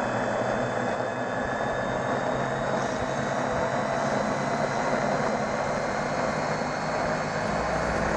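Racing quadcopter's brushless motors (Brotherhobby R4 2300kv with DAL 5045 propellers) spinning at idle while armed on the ground, a steady whirring hiss with a few steady high whines, heard up close through the onboard camera.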